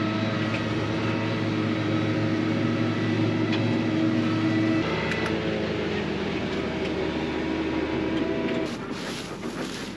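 Tractor engine running steadily under mowing load, heard from inside the cab. Its note drops about halfway, and the engine falls quieter shortly before the end.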